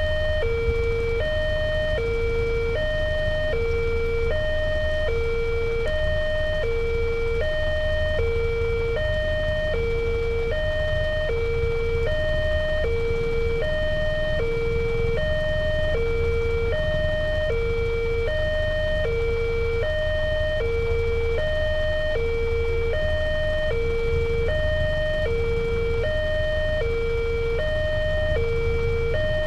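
Railway level-crossing gate siren sounding its two-tone alarm, switching back and forth between a higher and a lower tone in an even, unbroken rhythm over a steady low rumble. This is the warning that a train is approaching and the crossing barriers are closing.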